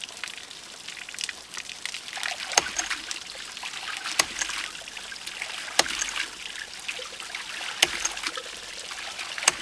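Hydraulic ram pump starting up: water splashing out of its waste valve, then the waste valve slamming shut with a sharp click every one and a half to two seconds as the pump begins cycling.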